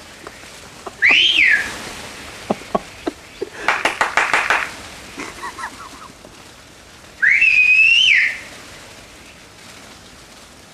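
A person whistling two loud notes, each about a second long: the first rises and falls, the second rises, holds and drops. Between them comes a quick burst of rapid clicking chatter.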